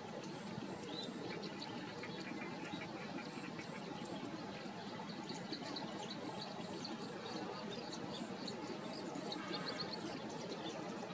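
Marsh ambience: small birds chirping over and over in short high notes, a little busier near the end, above a steady low background hiss.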